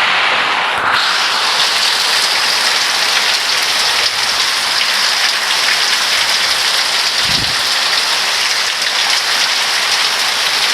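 Heavy downpour of summer rain: a steady, dense hiss of rain pouring down, with a brief low thump about seven seconds in.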